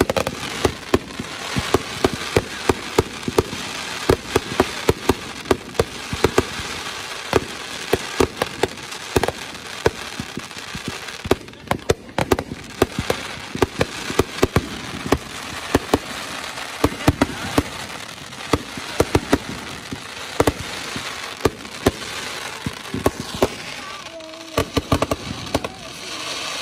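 Aerial fireworks shells bursting in a rapid, continuous string of bangs, several a second, over a steady hiss between them.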